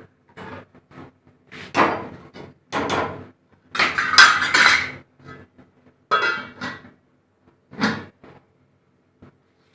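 A steel ladle clatters and scrapes against a stainless steel cooking pot and its steel lid in short bursts, the loudest cluster about halfway through. Near the end the steel lid is set down on the pot with a clank.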